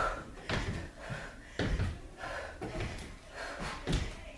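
Feet thudding down on a hardwood floor during tabletop kicks: a run of dull thuds, about one a second.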